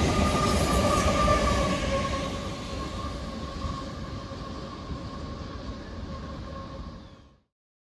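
Rear of a CSX freight train passing, its GE ES44AH pushing locomotive going by, with the rumble of wheels on the rails and a faint steady whine. The sound fades steadily as the train moves away, then cuts off about seven seconds in.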